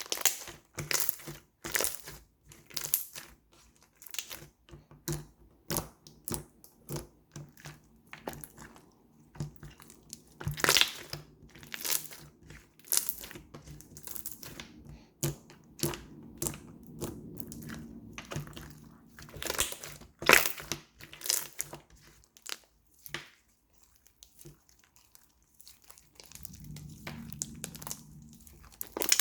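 Slime being pressed, stretched and poked by hand, giving a run of irregular sharp pops and clicks.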